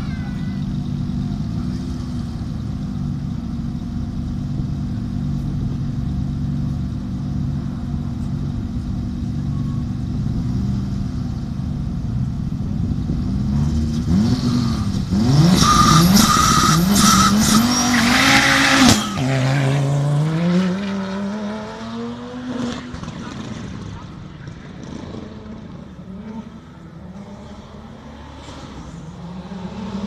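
Audi Quattro rally car's turbocharged five-cylinder engine idling with throttle blips at the start line. About halfway through it revs hard and launches with tyre squeal, then accelerates away in rising sweeps through the gears and fades into the distance.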